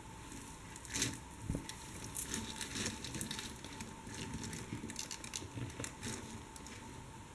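Faceted acrylic beads clicking and rustling against each other as they are handled and threaded on nylon line: a patter of small, quick clicks, loudest about a second in.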